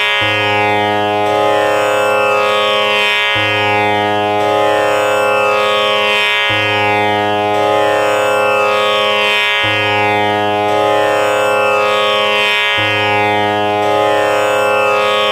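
Instrumental background music: a sustained drone-like tone with a phrase that repeats about every three seconds.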